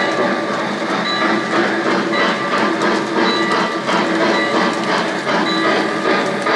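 O-gauge model train running on three-rail track: a steady, rapid clatter of wheels over the rails, with a short tone repeating about once a second.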